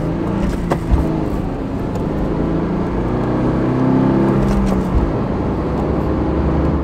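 Car engine pulling through the gears of a manual gearbox, heard from inside the cabin. The engine note rises, then drops about five seconds in at a shift.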